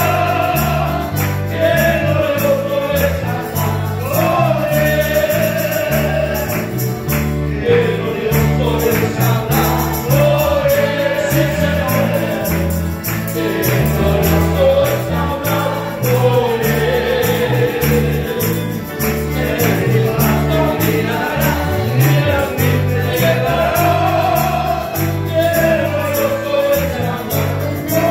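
Church congregation singing a hymn together to a string band of guitars, with a bass line stepping through the chords underneath the sung melody.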